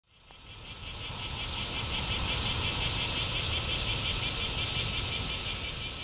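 Brown cicada (abura-zemi, Graptopsaltria nigrofuscata) singing: a loud, steady, high hissing buzz that swells up over the first second or two.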